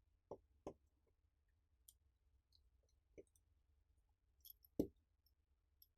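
Near silence broken by a handful of faint, short clicks, the last about five seconds in the loudest: a small screwdriver and tiny screws ticking against the iPhone 5c's metal connector plate as it is screwed down.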